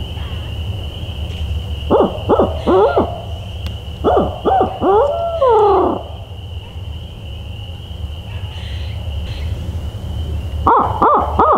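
Barred owl hooting in rising-and-falling phrases: a short group about two seconds in, then a longer phrase ending in a drawn-out falling note, with another burst of rapid hoots starting near the end. A steady high-pitched chorus runs underneath.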